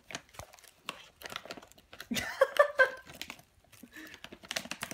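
A puppy nosing and biting at a crinkly plastic treat bag and paper, giving a run of uneven crinkles, rustles and clicks. A brief voice sound comes about halfway through.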